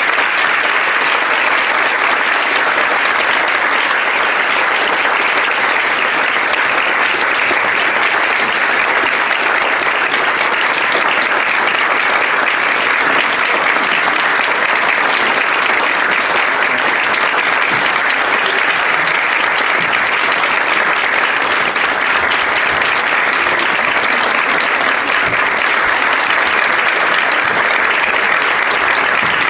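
Audience applauding: dense, steady clapping that holds at one level.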